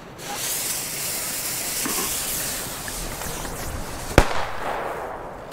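Fire Event Truenino firecracker (0.35 g charge): its fuse hisses steadily for about four seconds, then it goes off with one sharp bang.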